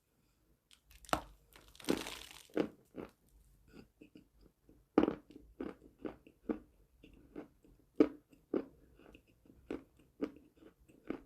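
A person biting and chewing a piece of chalk: sharp crunches at an irregular pace of roughly one to two a second, with one longer crunch about two seconds in.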